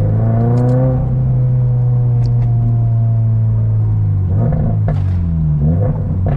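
Toyota GR86's flat-four engine heard from inside the cabin while driving. Its pitch rises in the first second, holds steady, then dips and climbs again a few times in the last two seconds.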